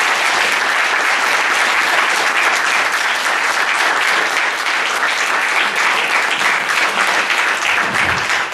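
An audience applauding steadily after a talk, many hands clapping at once in a room.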